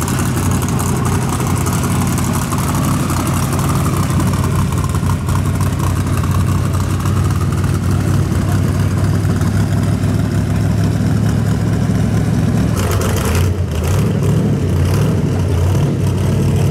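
Hot-rod pickup's V8 engine idling with a steady low rumble. Near the end the note turns rougher and uneven as the truck pulls away.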